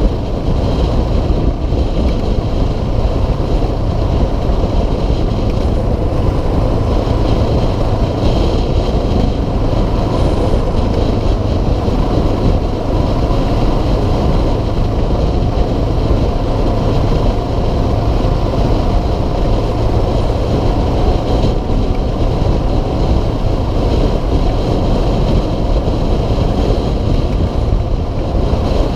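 2006 Suzuki DR650SE's single-cylinder four-stroke engine running steadily at cruising speed, with wind rushing over the helmet-mounted camera's microphone.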